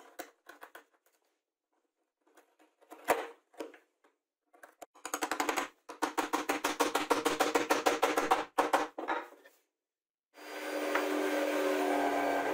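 A wood chisel scraping and tapping in a plywood recess, with one sharp knock, then a quick run of light hammer blows, about nine a second, driving a steel hex nut into the plywood. Near the end a steady machine drone starts.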